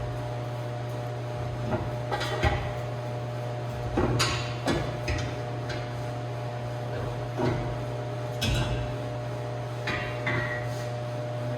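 Scattered metallic clanks and knocks, about seven over several seconds, as steel suspension parts (the subframe connector and its shims) are handled and fitted under the car. A steady low hum runs underneath.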